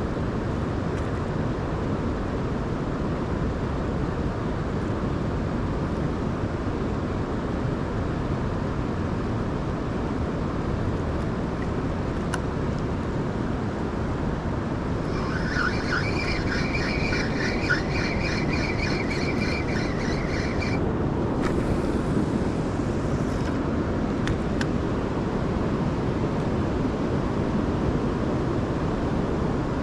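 Steady rushing of river water, with some wind on the microphone. About halfway through, a high rhythmic chattering sound lasts about five seconds.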